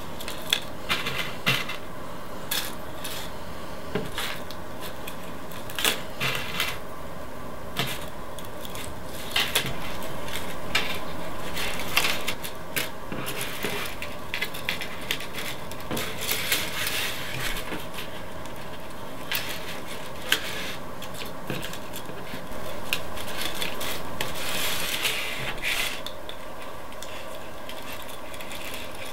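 Paper clips and plastic drinking straws being handled and fitted together by hand: irregular light clicks, clinks and rattles, scattered throughout, over a steady background hiss.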